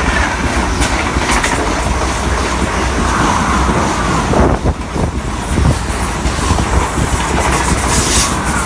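Renfe Class 130 (Talgo 250) train running through the station at speed close by, a loud steady rush and rumble of the passing articulated coaches. About halfway through comes a short run of clacks from the wheels over the track.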